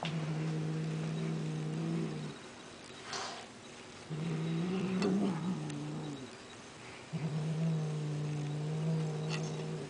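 Long-haired cat growling low over a wand toy held in its mouth, in three long drawn-out growls of about two seconds each, the middle one rising in pitch. It is a possessive growl, guarding the toy as prey.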